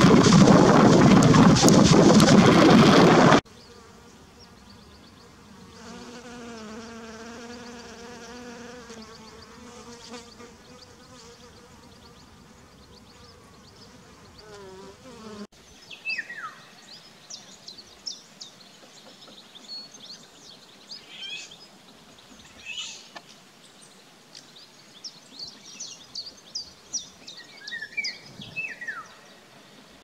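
Heavy rain falling, cutting off suddenly about three seconds in. Then a fly buzzing with a wavering hum. From about halfway through, a Eurasian golden oriole calls: short falling calls and quick high chirps.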